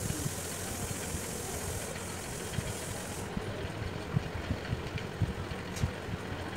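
A steady low motor hum, with faint, irregular soft taps over it.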